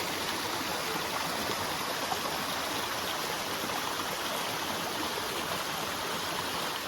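Steady rushing of water from a waterfall and the stream below it, an even hiss with no change.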